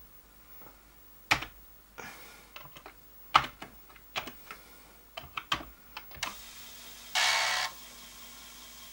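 Keystrokes on a Commodore 64 keyboard, single clicks and short runs, typing a disk load command. About six seconds in, a steady hum sets in as the Commodore 1541-II floppy drive starts running, with a brief loud whirring noise a second later.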